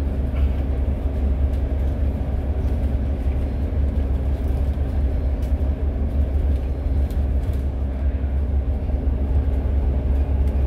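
Steady low rumble of a moving bus's engine and tyres on the highway, heard from inside the cabin, with a constant hum underneath.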